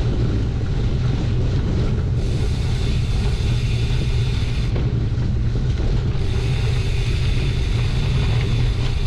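Wind buffeting the microphone over the rumble of gravel-bike tyres riding a dirt and gravel road, steady and loud. A brighter hiss comes in about two seconds in, drops out near the middle and returns a little later.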